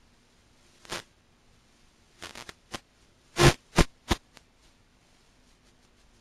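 Short static crackles and pops from an analog FPV video link, as the radio signal breaks up. There is one about a second in, then an irregular cluster from two to four seconds in with the loudest near the middle, over a faint low hum.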